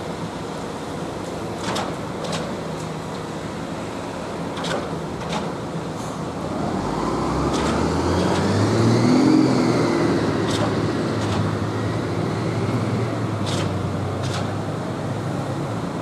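Truck-mounted concrete pumps running steadily, with a pair of clanks about every three seconds as the pumps cycle. A little before halfway a motor vehicle comes close, its engine rising in pitch and loudest just after the middle, then fades.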